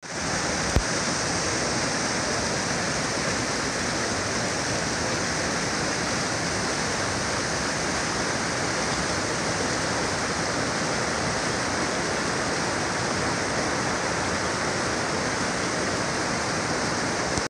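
Mountain creek rushing steadily over rocks and spilling down a small cascade. A single short click comes about a second in.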